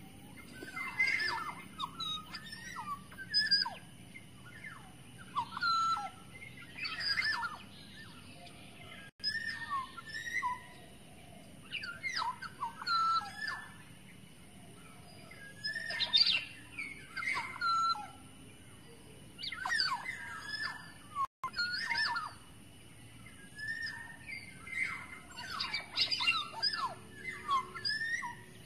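Black-naped oriole (kepodang) singing: short phrases of varied whistled and chattering notes, repeated every two to three seconds, with a faint steady high hiss behind.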